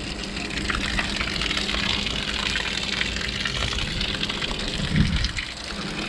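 Boat bilge pump, switched on by its automatic float, discharging a steady stream of water out of the hull outlet that splashes onto plastic sheeting below, with a faint steady hum under the splashing.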